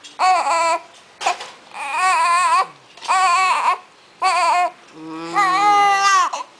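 Newborn baby crying in a string of about six short, high-pitched wails with brief breaths between them, the last one the longest.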